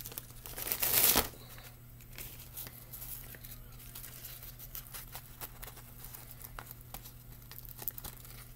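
Dry nori seaweed sheets and their packet crinkling and rustling as one sheet is taken out for the next roll. There is a loud rustle about a second in, then lighter crinkles and crackles as the sheet is handled.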